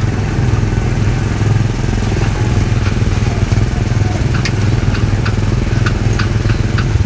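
Small gasoline engine of a ride car running steadily under way, a loud low drone. A series of short sharp clicks sounds in the second half.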